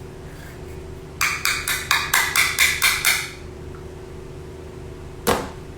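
A quick run of about ten sharp knocks, roughly five a second, lasting about two seconds, then a single knock a couple of seconds later, over a steady low hum.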